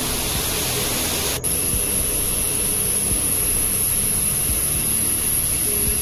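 Steady rushing of water pouring over the rock lip of a small waterfall, heard close to the fall, with a brief break about a second and a half in.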